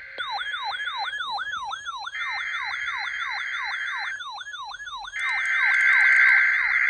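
EAS alert data bursts for a NOAA Weather Radio Required Weekly Test: three harsh buzzing bursts of the SAME digital header about a second apart, the last the loudest, with an electronic siren yelping up and down about three times a second.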